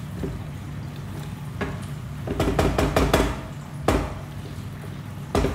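A spatula stirring in a wok of thick gravy, scraping and knocking against the pan, with a quick run of knocks in the middle and single knocks near the end, over a steady low hum.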